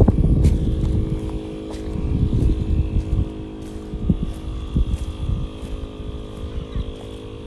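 Wind buffeting the microphone in gusts, strongest at the start, over a steady motor hum.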